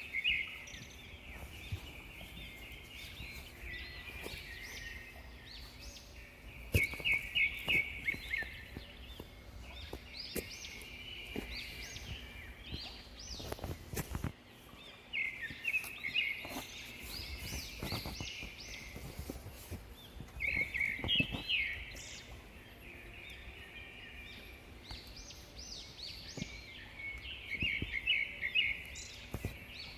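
Small birds chirping and singing in repeated short phrases of quick notes, coming every few seconds over a low background rumble, with a few short knocks.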